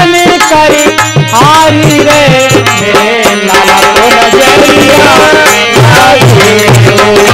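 Live devotional folk music: a harmonium playing the melody, a dholak drum beating a steady rhythm and small hand cymbals (manjira) clinking, with a man singing.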